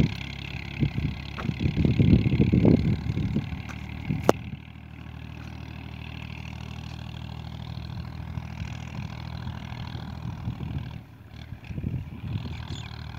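An engine running steadily at an even pitch, a constant low hum. For the first four seconds or so it is mixed with wind buffeting the microphone, and there is a single sharp click about four seconds in.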